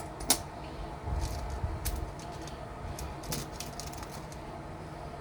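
Sapphire wash gravel being sorted by hand in a sieve: small stones clicking against each other, with a sharp click just after the start, a short low rustle about a second in, then a run of light scattered clicks.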